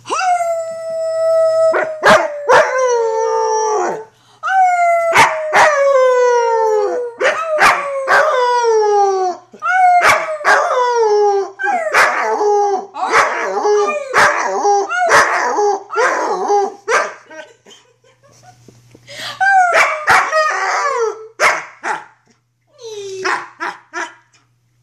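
Young black wolfdog (wolf hybrid) howling: a run of long howls, each sliding down in pitch, then after a short lull a few shorter, broken howls near the end.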